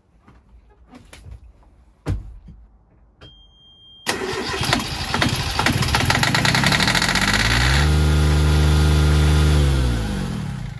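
Yanmar 3GM30F three-cylinder marine diesel cranked from cold with its fuel system freshly bled: the starter engages about four seconds in and the engine catches on the first try and keeps running, loudest a few seconds later before easing back. Before the start, a few light knocks.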